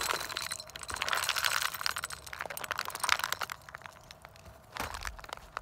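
Dry pellet bait shaken out of a plastic jug, pattering and clicking onto a metal tube trap and the snow around it in a quick run of small hits that thins out about three and a half seconds in.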